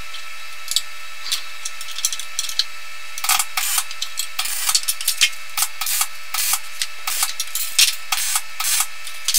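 Steel bars and angle irons clinking and scraping as they are handled and set against a steel frame: irregular short metallic clicks and rattles over a steady hum.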